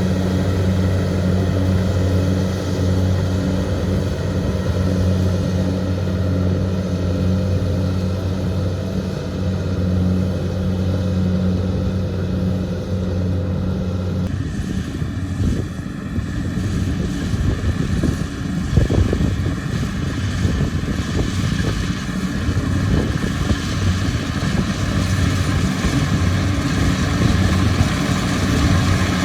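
Kubota DC-70 rice combine harvester's diesel engine and threshing machinery running steadily under load. About halfway through, the sound changes abruptly to a noisier, rattling mix with a different steady whine.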